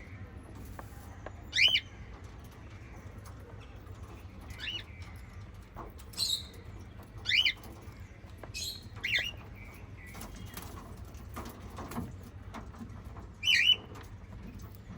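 Small pet parrots giving short, sharp chirps a second or a few seconds apart, about seven in all, over a low steady hum.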